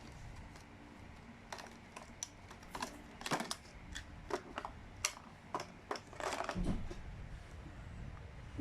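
Small plastic clicks and taps with brief rustling as a GoPro-style action camera and its packaging are handled, with a longer rustle or scrape a little after six seconds in.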